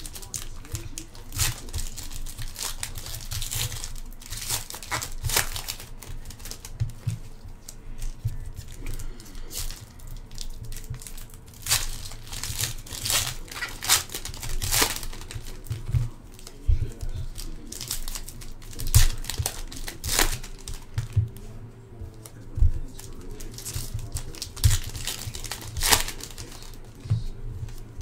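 Foil-wrapped Panini Prizm football hobby card packs being torn open and the wrappers crumpled: an irregular run of sharp crinkles and tearing sounds.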